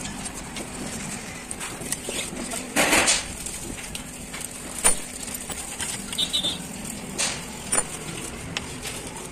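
Metal clicks and clinks of small bolts, washers and a socket T-wrench against a truck alternator's aluminium housing as it is taken apart, with one louder, longer noise about three seconds in.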